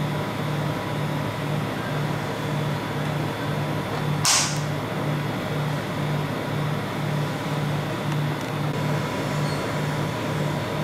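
Rolled-ice-cream machine's refrigeration compressor running under its frosted cold plate: a steady hum with a low tone that pulses about twice a second. A short scrape about four seconds in.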